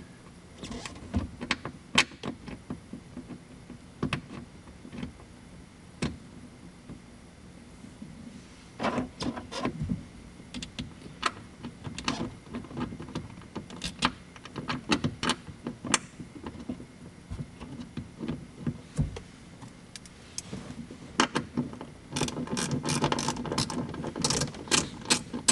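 Ratchet wrench clicking as the grab handle's mounting bolts are driven back in, in short runs of clicks with pauses between, the longest and fastest run near the end.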